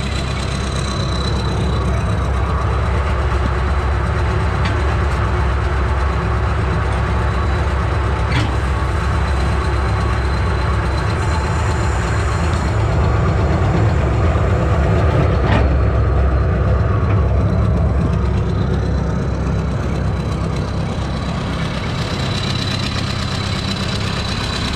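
Vermeer BC1500 wood chipper running steadily with no load, its engine note swelling slightly about midway through, over a thin high whine and a couple of faint clicks.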